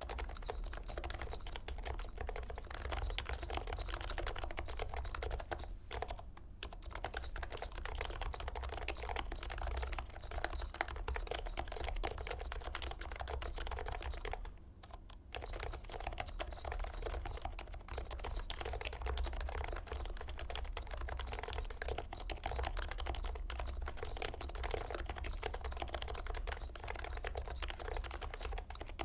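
Continuous typing on a dnworks Taycan Topre keyboard with 45g rubber domes, Pro 2 sliders lubed with Krytox 205g0 and stock silencing rings, on a stainless steel top-mount plate. It is a steady run of keystrokes, with short pauses about six and fifteen seconds in.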